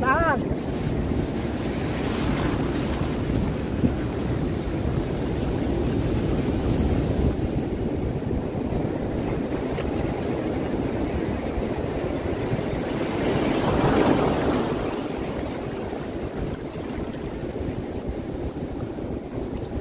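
Surf washing up a sandy beach: a steady rush of breaking, foaming waves that swells about two seconds in and again more loudly around fourteen seconds in, then eases. A brief pitched squeal sounds right at the start.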